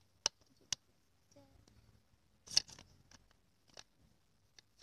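Crisp clicks and rustles of a printed card scene insert being handled and fitted into a small plastic toy playset, the loudest cluster about two and a half seconds in.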